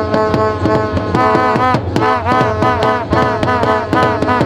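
Music with a fast, steady drum beat under a melody.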